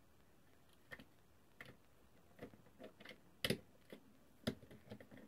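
Faint, irregular clicks and taps of a screwdriver working the screw terminals of a Mean Well DR-15-5 DIN-rail power supply while a mains wire is fitted, two sharper clicks standing out past the middle.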